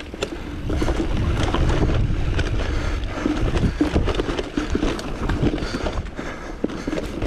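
Nukeproof mountain bike riding down a dry dirt trail: tyres rolling over dirt and roots under a steady low rumble, with many small knocks and rattles from the bike and the bouncing camera over the bumps.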